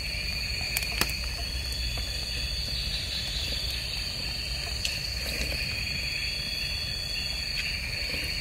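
Night insect chorus: a steady, high-pitched, unbroken trilling, with a single sharp click about a second in.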